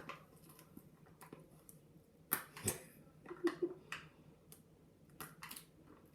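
Plastic packaging being handled and pried at by hand: irregular crinkles and clicks, loudest a little over two seconds in and again around five seconds in, as it refuses to open.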